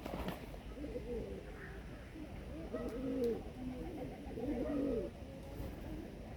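Pigeons cooing: a few low, soft, arching calls, the loudest about three and five seconds in.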